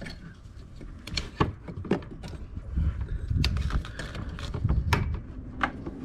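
Scattered clicks and knocks of plastic and metal parts being handled as a scooter's fuel pump assembly is fitted back in place, with a low rumble of handling in the middle.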